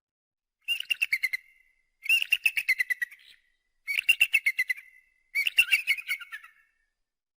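Eagle calling: four bursts of rapid, high-pitched chattering notes, each lasting about a second, with short pauses between them.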